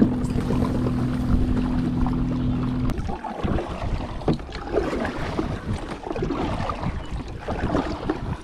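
Sounds from a fishing kayak on the water: a steady low hum that stops about three seconds in, followed by uneven knocking and rustling.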